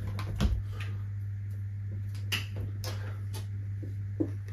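Marker pen writing on a small handheld whiteboard: a scattering of short, sharp strokes and taps, over a steady low hum.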